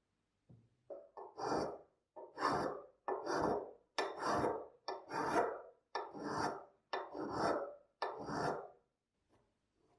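Flat hand file rasping across the threaded filler fitting of a Hähnel 3 blowtorch's metal tank, filing off surface imperfections: a few short strokes, then about seven long strokes, roughly one a second.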